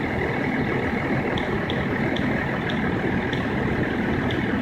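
Range Rover TD6 diesel engine running steadily at idle, with a few faint light ticks here and there.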